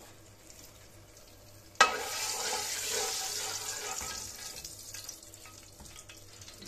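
Hot oil with salt in it sizzling in a karahi as a slotted spoon is stirred through it. It starts suddenly with a sharp knock about two seconds in and dies away over the next few seconds.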